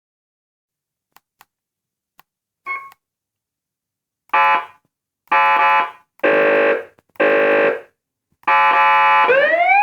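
Federal Sign ASH8B 400-watt electronic vehicle siren: a few faint clicks and a short beep, then four short buzzy horn blasts about a second apart and a longer blast that, near the end, turns into a rising siren wail.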